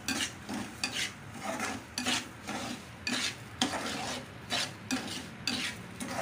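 Metal spoon stirring and scraping sugar into ghee-fried semolina in a metal pan, gritty strokes about twice a second.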